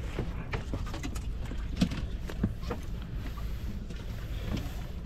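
Steady low rumble of a fishing boat at sea, with scattered light knocks and clicks, one a little louder about two seconds in.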